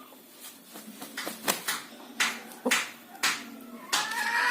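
About six sharp taps spread over a few seconds, then a chicken begins calling near the end. The bird has recovered from ngorok, the snoring respiratory illness, and is heard without any snoring.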